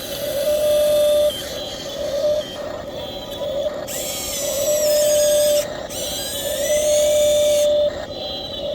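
Radio-controlled model excavator working: its motors whine in stretches of a second or two, sliding up and down in pitch. Over them a held electronic beep tone sounds several times.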